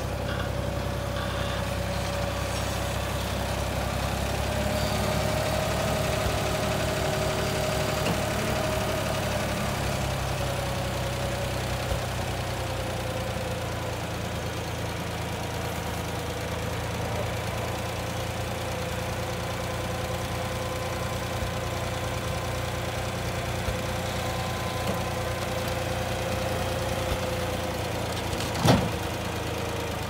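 Small farm tractor's engine running steadily while its front-end loader carries a log, with a faint whine that rises a little and then settles. A single sharp knock comes near the end.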